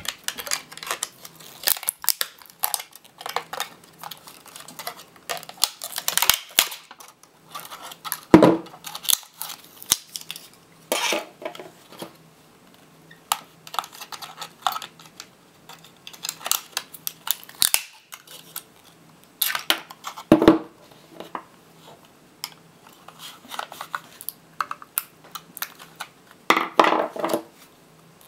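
Plastic case of an HP HSTNN-LB88 laptop battery pack being pried and cut apart with pliers and a screwdriver: irregular cracks, clicks and creaks of the plastic with clinks of the metal tools. A few louder snaps stand out, about 8 seconds in, about 20 seconds in, and near the end.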